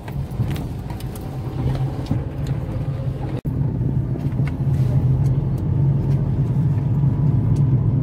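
Road and engine noise inside a moving car's cabin: a steady low rumble, with a momentary break about three and a half seconds in.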